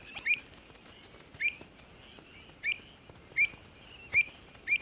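Pied avocet calling: six short, high call notes, each with a quick upward hook, repeated roughly once a second.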